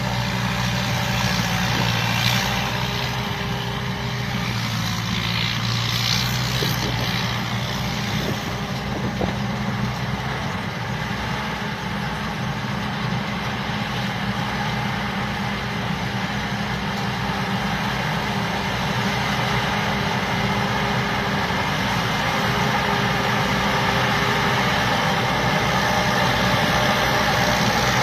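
Combine harvester's diesel engine running steadily under a broad mechanical noise, with a low, even hum. It grows a little louder in the last few seconds.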